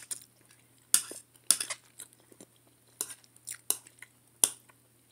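Metal fork scraping and clinking against a glazed ceramic plate while picking up chicken and rice: a series of short scrapes and clicks, several seconds' worth, with short pauses between.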